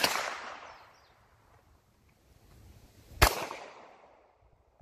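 Two gunshots, one right at the start (from a pistol) and another about three seconds later, each trailing off in an echo.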